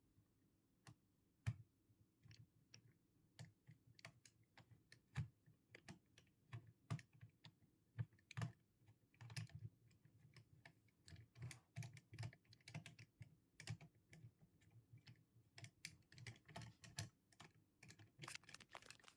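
Faint, irregular light clicks and knocks of small hard computer parts being handled during PC assembly.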